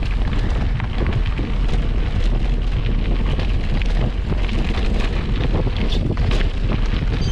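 Wind buffeting the microphone of a camera carried along on a mountain bike, a steady low rumble, with many small rattles and knocks from the bike running over the trail.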